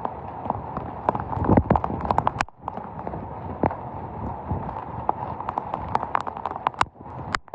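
Storm rain with many irregular sharp taps of drops striking a hard surface close to the microphone, coming thickest in two clusters, early and late.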